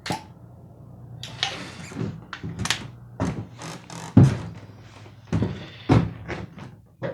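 Hand tools clattering and knocking while someone rummages through them for a screwdriver: a dozen or so irregular knocks, the loudest about four seconds in.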